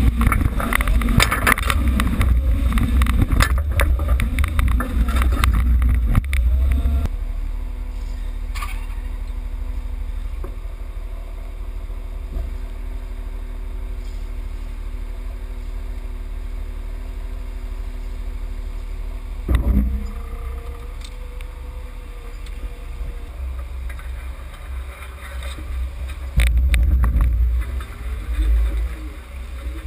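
A vehicle engine idling steadily. Heavy low rumbling and knocking noise fill the first few seconds, and the rumble comes back loud near the end.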